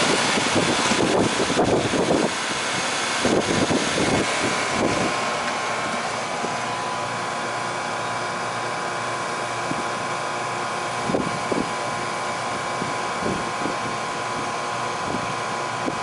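Outdoor air-conditioning condensing unit running: a steady whir of the condenser fan and compressor, with a few handling knocks and rustles in the first five seconds.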